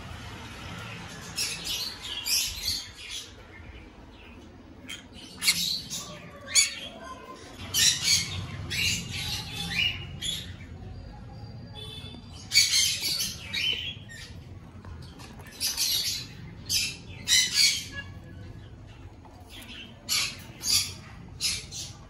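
Pineapple conures, a colour mutation of the green-cheeked conure, giving harsh, screechy squawks in short repeated bouts of a few calls each.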